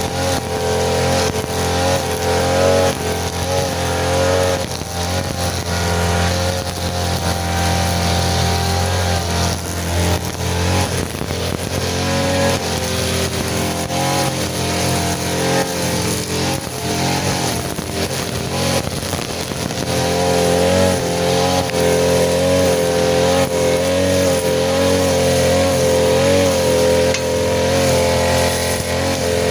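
Small petrol engine of a grass cutter running and cutting, its pitch wavering up and down with the load. Scattered sharp ticks and clatter from the cutting come through in the middle stretch.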